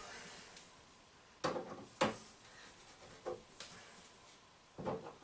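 A hand cutting tool working at a stainless steel crimp-on PEX clamp: a handful of sharp metal clicks and knocks, the loudest about two seconds in, with a few more near the end.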